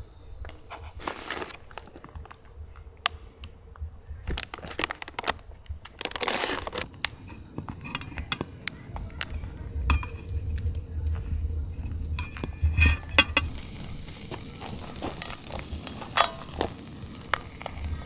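Dishes and utensils clinking and clattering as they are handled, with scattered knocks and rustling. A steady hiss comes in about three-quarters of the way through.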